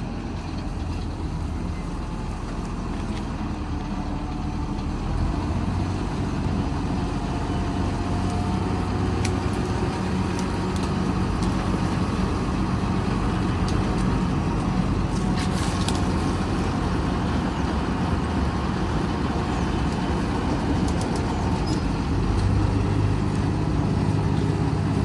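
Combine harvester's diesel engine running steadily under load as the machine strains to drive up out of mud onto the road, its small wheels stuck in the mud so it does not pull free.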